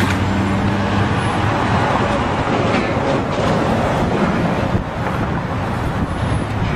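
Steady road-traffic and engine noise, with a low engine hum at the start and again near the end.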